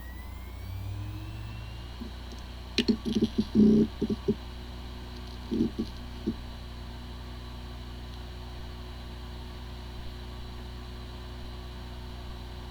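Hard drive running: a whine rising in pitch as it spins up, a cluster of loud clicks and knocks about three to four seconds in and a few more near six seconds, then a steady spinning hum. This is the sound of a drive with corrupted disk firmware, which spins fine but cannot be accessed by a computer.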